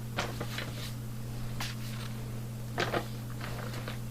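A few faint rustles and light knocks of paperwork and kit packaging being handled and set down, over a steady low electrical hum.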